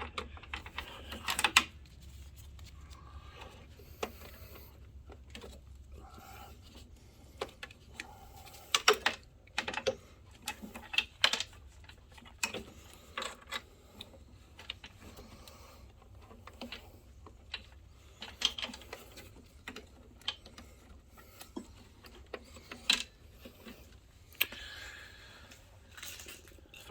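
Irregular small clicks, taps and knocks of hands working inside a DLP projector's plastic housing, fitting and routing a lamp connector wire. A low hum sits under the first few seconds.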